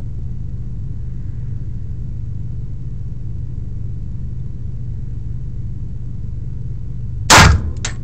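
A single loud pistol shot about seven seconds in, over a steady low hum.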